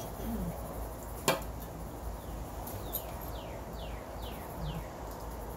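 A single sharp click about a second in, then a bird calling a quick run of five short, falling notes.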